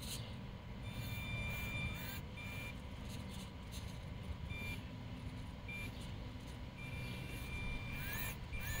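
Small electric RC rock crawler's motor and drivetrain whining as it climbs rocks. The high whine starts and stops several times with the throttle, with a few short rising whines near the end.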